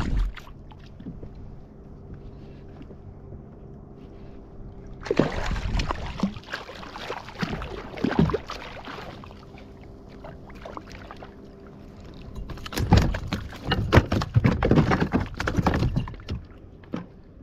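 Water splashing and sloshing around a kayak in two spells of a few seconds each, about five and about twelve seconds in, over a faint steady hum.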